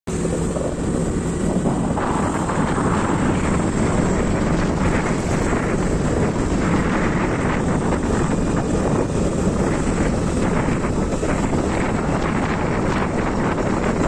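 Wind buffeting the microphone and road rumble from a moving vehicle: a steady, loud rush with a deep rumble underneath, getting a little brighter about two seconds in.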